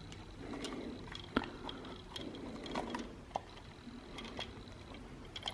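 Scattered light clicks and taps at an irregular pace: small screws and plastic housing parts of a portable speaker being handled during disassembly.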